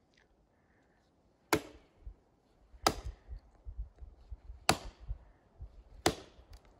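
An axe chopping into wood: four sharp blows about one and a half seconds apart, each with a short ring after the strike.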